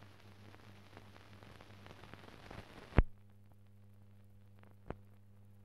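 Film transfer noise from a silent newsreel with no soundtrack: faint hiss and scattered crackle over a low hum. A loud click comes about three seconds in, after which only a fainter hum remains, with one more small click near the end.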